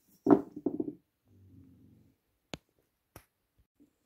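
A small wooden toy boat hull being handled on a wooden workbench: a quick run of several knocks near the start, then two sharp clicks later on.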